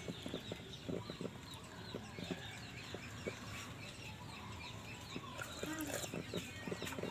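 Faint chicken clucking, with light clicks and taps of a spoon against a mug.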